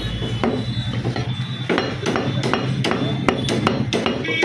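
Butcher's cleaver chopping goat meat and bone on a chopping block in a fast, irregular run of sharp strikes, about two or three a second.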